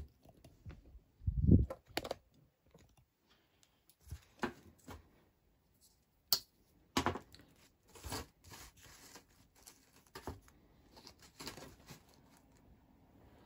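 Small plastic plant pots being handled and set down on a plastic-sheeted table, with scattered crinkling and light knocks. There is one heavier low thump about a second and a half in.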